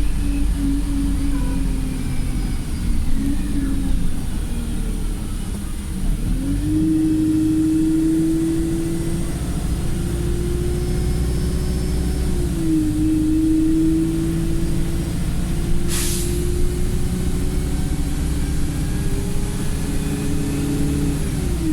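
Interior sound of a Wright StreetLite single-deck bus running in limp mode: a steady low engine drone with a whine whose pitch climbs and drops back a few times. A short hiss of air comes about two-thirds of the way through.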